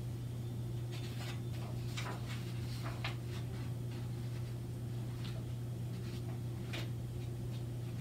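Pages of a hardcover picture book being turned by hand: short, faint paper rustles and slides over a steady low hum.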